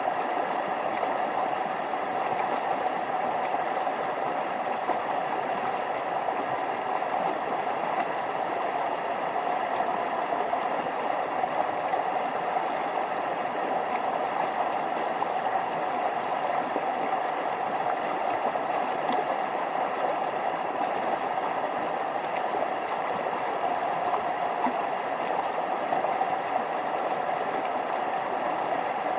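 Small forest stream flowing over little waterfalls: a steady, even rush of water.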